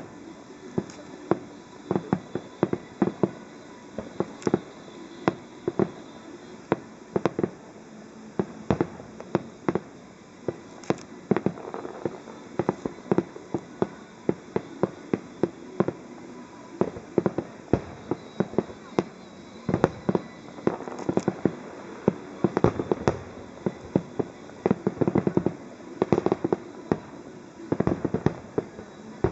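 Aerial firework shells bursting in a rapid, irregular string of sharp bangs, several a second, coming in denser clusters in the second half.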